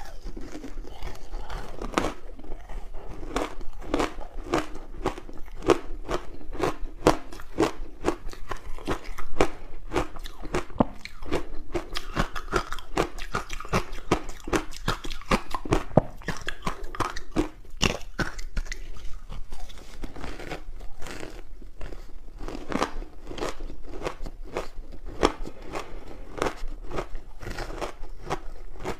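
Biting and chewing soft frozen ice balls coated in green barley powder: a steady stream of crunches and crackles.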